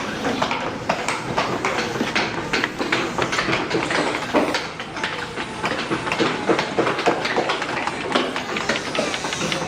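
Wood carving by hand: many mallets tapping on chisels at once, a dense stream of irregular, overlapping knocks.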